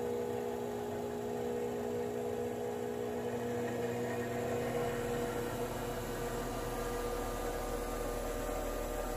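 Treadmill DC motor, driven by an MC60 control board, running with a steady electric hum. About halfway through, its tone shifts and a lower hum comes in.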